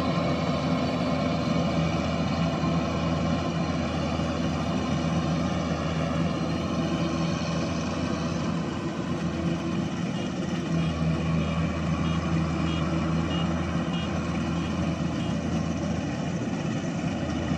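Kubota combine harvester's diesel engine running steadily, dipping slightly about halfway through.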